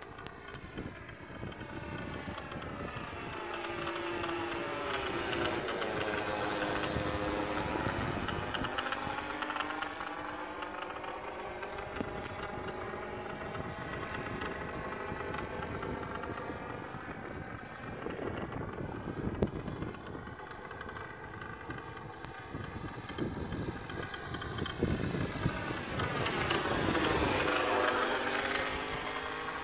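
Laser 80 diesel four-stroke engine of a radio-controlled model plane running in flight. Its drone swells and its pitch dips and climbs back twice as the plane passes, loudest near the end.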